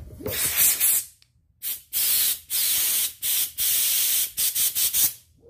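Compressed-air blow gun blowing foam cleaner out of a chainsaw carburetor in hissing blasts. There is one long blast near the start, then several of about half a second, and a quick run of short bursts near the end.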